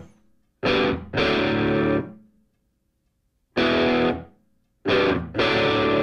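Distorted electric guitar playing loud held chords in short stabs, broken by a silent pause of about a second midway.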